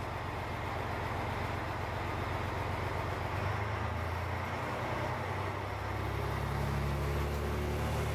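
Diesel railcar engine running, heard inside the passenger cabin. Its low drone builds up about halfway through and grows louder near the end.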